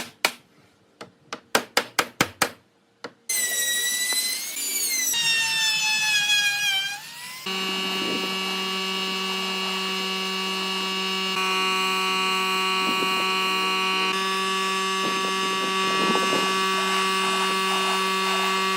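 A few sharp taps, then an electric power tool's motor starting about three seconds in, its pitch rising and falling for a few seconds before it settles into a steady run.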